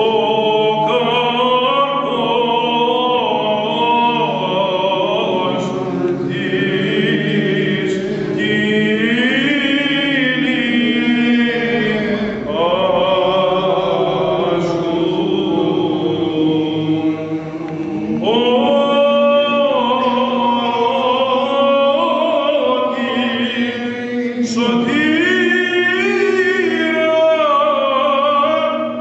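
Greek Orthodox Byzantine chant: voices sing a slow, ornamented melody with long gliding notes over a steady held drone.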